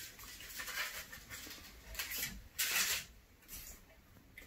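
Gold craft foil crinkling and rustling as it is snipped with scissors and scrunched onto a glued card letter, in a few short bursts, the loudest a little before three seconds in.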